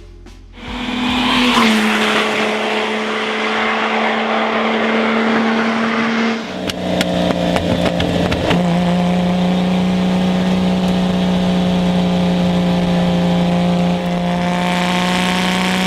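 Lamborghini Miura S's transverse mid-mounted 3.9-litre V12 running hard at a steady engine speed, its note holding one pitch. About six seconds in, the pitch steps down to a lower, steady note.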